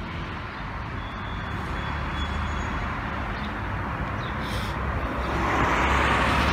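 Street traffic noise, with a car approaching and passing near the end, its engine and tyre noise growing louder.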